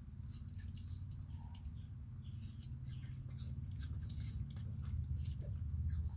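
Macaques chewing pieces of fruit: a run of quick, irregular clicks and crunches, denser from about two seconds in, over a steady low hum.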